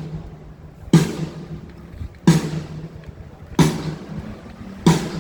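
A single drum struck four times at a slow, even pace, about one hit every second and a half, each hit with a low ringing tone that dies away: one drum being checked on its own during a sound check.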